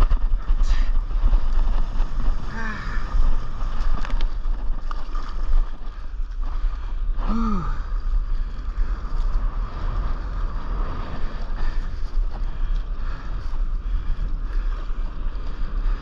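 Wind buffeting the microphone over seawater lapping and splashing around a paddleboard. A brief voice sound comes about two and a half seconds in, and another, falling in pitch, about seven and a half seconds in.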